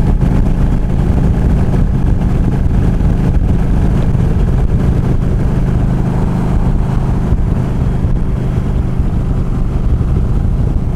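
Yamaha V Star 1300's V-twin engine droning steadily at highway cruising speed, with wind noise over it.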